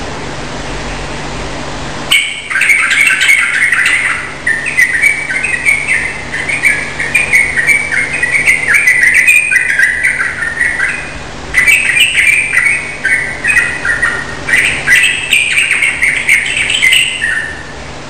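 Yellow-vented bulbul (trucukan) singing a long run of rapid, chattering phrases that start about two seconds in, after a stretch of steady hiss. There is a short break a little past the middle.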